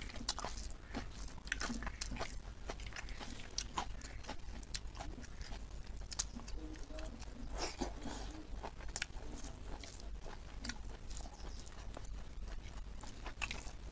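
Close-miked chewing of pork leg meat and rice, with frequent irregular mouth clicks.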